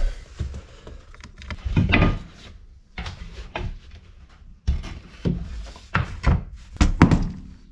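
Mahogany planks and strips being handled and set against a wooden bulkhead: a series of irregular dull wooden knocks and wood rubbing on wood.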